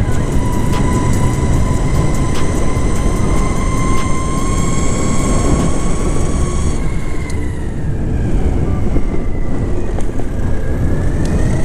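Exway Atlas 4WD electric skateboard's motors whining under load in fourth gear, over a steady rumble of wheels and wind. The whine falls in pitch about seven seconds in and rises again near the end, with occasional light ticks.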